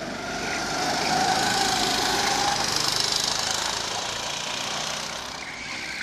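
Go-kart engine passing close by at speed: its buzz rises in pitch and loudness over the first second or two, then fades away.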